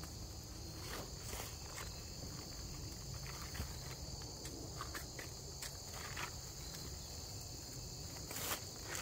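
Steady high drone of crickets, with scattered footsteps and short clicks and knocks of frozen corn cobs being handled and set down, a little louder near the end.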